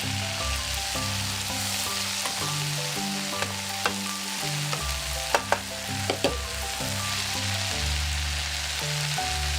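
Vegetables sautéing in olive oil in a pan, a steady sizzle, with a few sharp clicks from stirring between about three and six and a half seconds in. Soft background music plays underneath.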